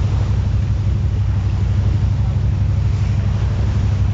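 A boat's engine running steadily under way: a loud, low, pulsing drone.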